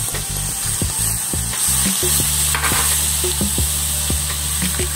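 Garlic sizzling in hot melted butter in a cast-iron skillet, with a metal fork clicking and scraping against the pan as it is stirred. A low steady hum sets in about two seconds in.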